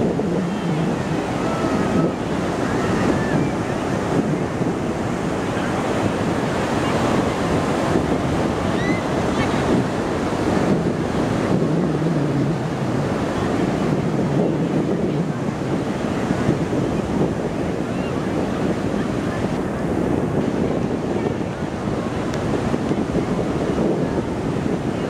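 Fireworks display going off without pause, many bursts running together into a steady rumbling, crackling noise with no single loud bang standing out.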